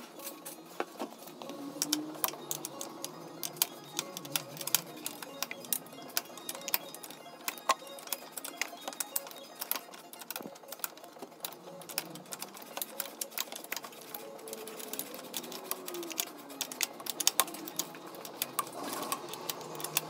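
Socket ratchet wrench clicking in rapid runs as a bolt on a scooter engine is turned, over quiet background music.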